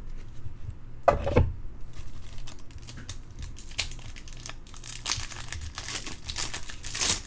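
Foil wrapper of a trading-card pack crinkling and tearing as it is opened by hand, with one sharper, louder crackle about a second in and a dense run of crinkling in the second half.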